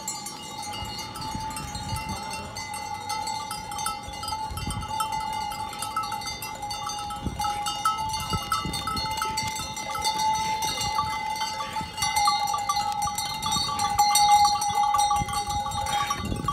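Bells worn by a passing herd of goats, many ringing and clanking at once in a steady jangle that gets louder as the herd crowds past, with hooves on paving stones.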